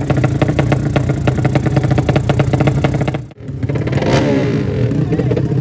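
Racing motorcycle engine running loud at high revs, with a fast pulsing note. The sound cuts out abruptly just past halfway, then comes back revving, the pitch sweeping up and down.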